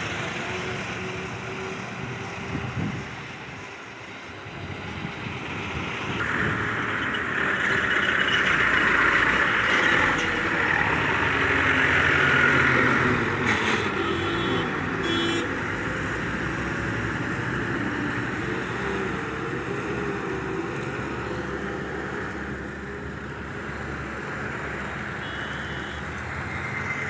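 Heavy trucks and other traffic driving past on a highway: engine and tyre noise that swells as a truck passes close, loudest a little before the middle. Two short beeps sound near the middle.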